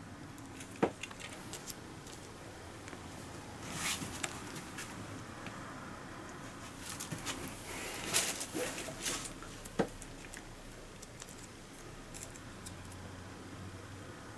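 Hands handling a plastic sushi tray and its packaging: a few sharp plastic clicks and bursts of crinkling as the clear lid comes off and small sauce packets are opened and squeezed over the sushi.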